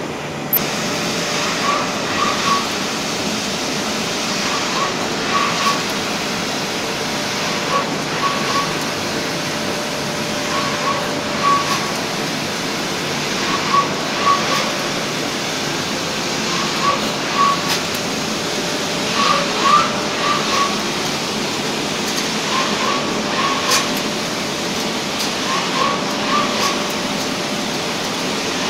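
An instant noodle processing line running, with a steady machinery din and a faint held tone. A short high squeak sounds in pairs about every three seconds, in an even machine rhythm.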